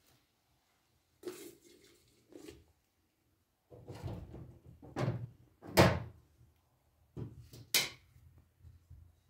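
Household objects being handled: a series of separate knocks and thuds, the loudest a heavy thump about six seconds in, with two sharper knocks near the end.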